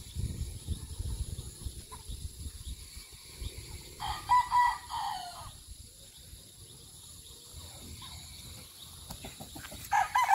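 Roosters crowing: one full crow about four seconds in, and another starting near the end.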